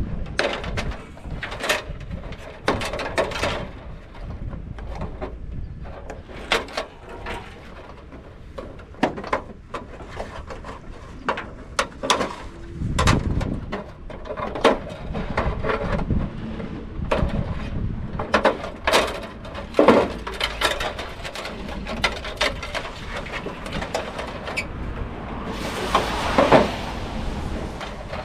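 Scrap metal and wire being handled and sorted: irregular clanks, knocks and rattles, with a longer scraping noise near the end.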